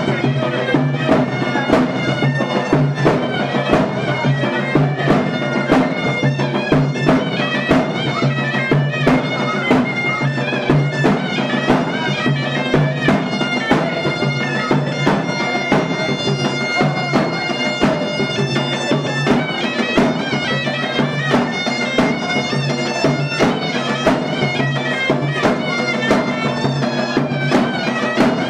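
Kurdish folk dance music: a held wind-instrument melody over a steady, regular drum beat.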